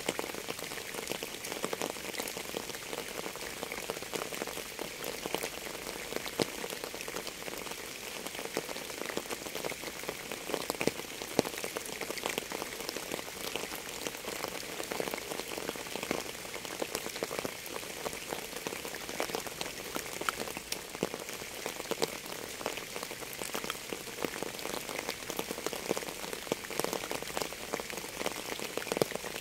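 Steady rain falling, with a dense patter of individual drops hitting a surface.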